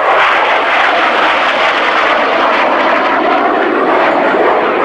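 BAC Jet Provost's Viper turbojet in a display flypast, a loud, steady jet rush that settles lower in pitch near the end.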